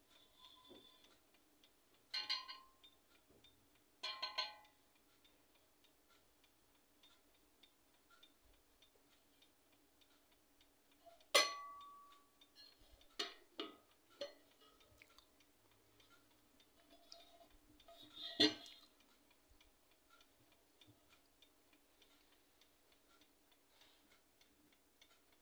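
Clicks, clinks and short scrapes from an antique silver jewelry box being handled and its hinged metal lid shut, a handful of separate knocks spread out. The sharpest, about eleven seconds in, has a brief metallic ring after it.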